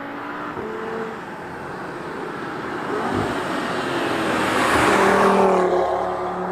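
Audi TT RS Roadster's turbocharged five-cylinder engine and sports exhaust, accelerating up the road and passing close by. It grows louder to a peak about five seconds in, then the pitch drops as the car goes past.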